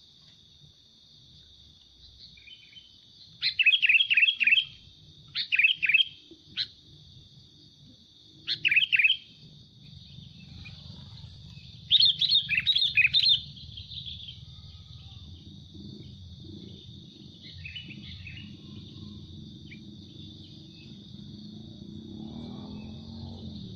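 Sooty-headed bulbul (kutilang) calling in quick bubbly phrases of a few notes each, about five phrases in the first half, the loudest near the middle, then one faint phrase; a decoy bird calling to draw wild bulbuls. A steady high hiss runs underneath.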